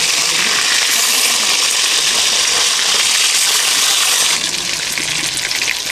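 Pieces of small rohu fish sizzling steadily in hot oil in a kadhai while they are turned over with a spatula to fry the other side. The sizzle eases a little about four and a half seconds in.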